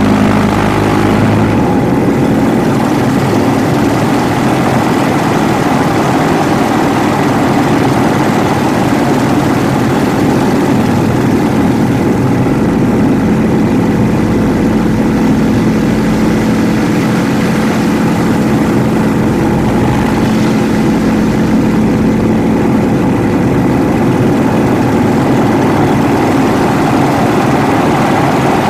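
Yak-52's nine-cylinder Vedeneyev M-14P radial engine and propeller running steadily under power, with a slight shift in tone about a second and a half in.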